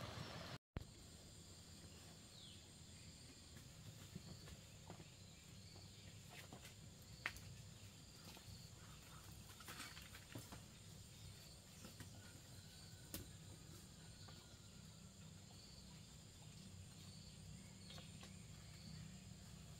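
Faint insects in vegetation: a steady high-pitched trill with a soft chirp repeating about once a second. A few faint clicks and rustles of footsteps and leaves, and a brief dropout about half a second in.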